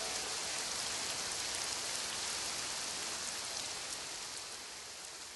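Steady hiss of rain with faint scattered drop ticks, a recorded rain effect at the end of a song, gradually fading out over the last couple of seconds.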